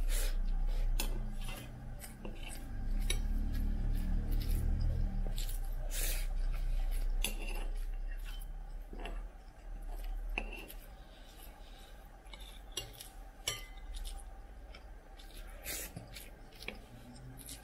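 A spoon scraping and clinking against a ceramic plate in many irregular short strokes, gathering up the last grains of rice. A low rumble sits under the first half.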